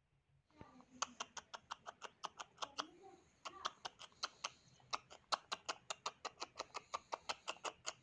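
A rapid, even run of sharp clicks, about six a second, starting suddenly about half a second in, with faint voice-like sounds under it.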